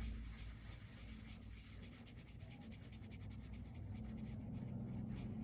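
Felt-tip marker scribbling quickly back and forth on paper, colouring in a shape: a faint, rapid scratching of many short strokes.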